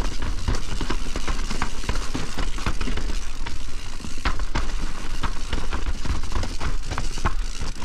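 Privateer 161 enduro mountain bike riding down a damp, rough trail: tyres running over dirt and rocks with a constant low rumble, and the chain and frame giving off many irregular sharp knocks and rattles.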